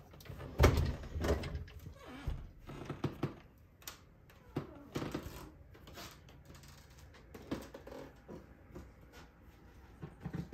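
A closet door being shut with a heavy thud about a second in, followed by scattered light knocks and clicks.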